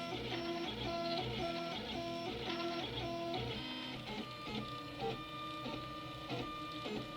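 Stepper motors of a homebuilt H-bot 3D printer whining as the print head makes fast moves. The whine shifts between pitches about twice a second as it changes direction, in a repeating pattern.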